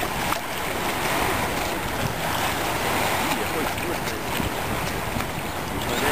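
Steady rushing of wind on the microphone mixed with the wash of river water.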